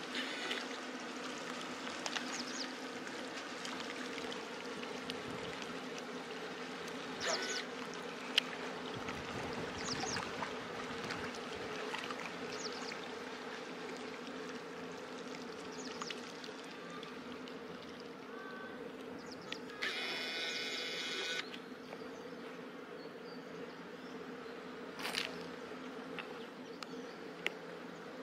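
Running water of a shallow river flowing over stones, with a steady low hum underneath and a few sharp clicks. A brief high, buzzy sound comes about twenty seconds in.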